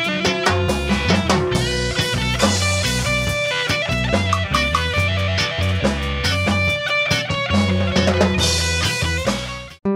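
A rock band playing: electric guitars and bass over a drum kit, with a steady beat. The music cuts off suddenly near the end.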